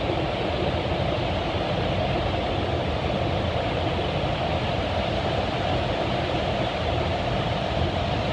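Steady rush of water pouring over a large waterfall, Fukiwari Falls, a loud unbroken roar with no changes.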